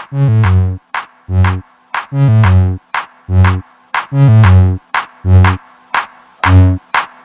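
Electronic music: a drum-machine beat with punchy synthesizer bass notes in a choppy, stop-start rhythm.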